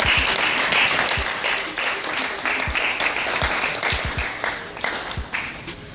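Audience applauding, many hands clapping at once, loud at first and dying away toward the end.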